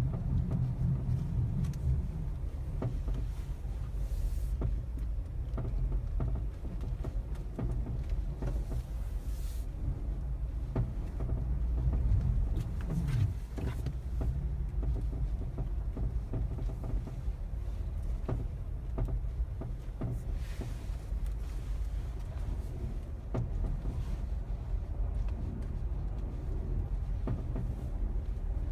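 Mazda 3 (BM) on the move, heard from inside the cabin: a steady low road and engine rumble with irregular short knocks from underneath the car. This cold-weather knock is one the owner suspects comes from the dealer-fitted engine skid plate.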